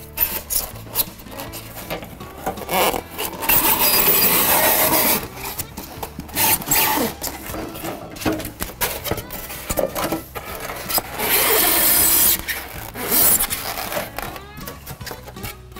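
A foam strip being slid into a steel log-siding panel from the end, rubbing and scraping against the metal in a few long pushes, the longest about three seconds in and again about eleven seconds in, with light knocks between.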